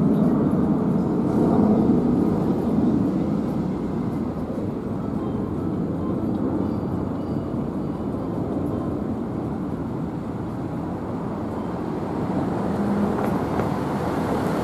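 Low rumble of a fire truck's diesel engine and street traffic as the apparatus drives off, easing slightly over the first few seconds and then holding steady.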